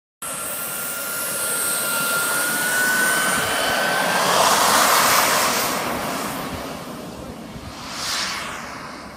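Radio-controlled model jet running at full power on its takeoff run: a rushing jet sound with a high whine that rises slightly. It grows loudest as the model passes about five seconds in, then fades as it climbs away.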